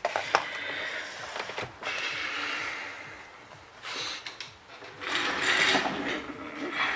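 Small tablet parts and tools being handled, with uneven scraping and a few light clicks.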